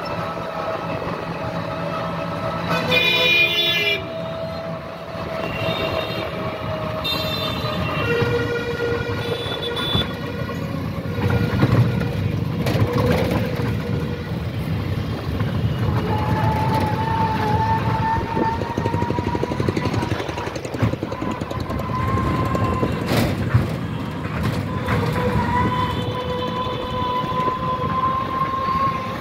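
Busy street traffic heard from a moving rickshaw, with vehicle horns honking several times in the first ten seconds. In the second half a steady whine rises slowly in pitch over the traffic noise.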